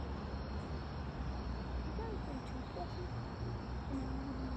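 Steady low rumble with crickets trilling faintly and steadily in a high pitch, and faint, brief distant voices from about halfway through.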